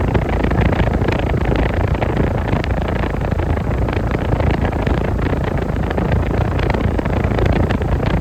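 A running 2017 Weather King central air conditioner's outdoor condensing unit, with its Emerson Copeland scroll compressor: the condenser fan blowing air and the compressor running, a loud, steady noise with a deep rumble underneath.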